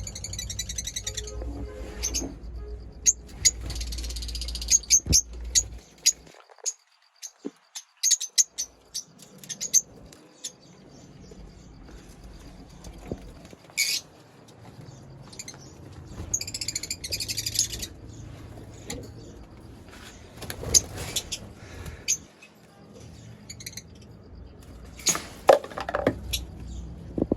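Lovebirds chirping: many short, sharp, high chirps coming in clusters, with brief pauses between them.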